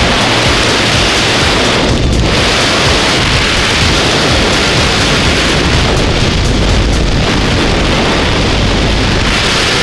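Loud, steady rush of freefall wind blasting over a helmet-mounted camera's microphone during a skydive.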